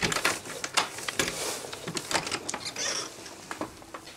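A metal lever door handle clicking and the cabin door being opened, followed by a run of knocks, clicks and rustling as the doorway is passed.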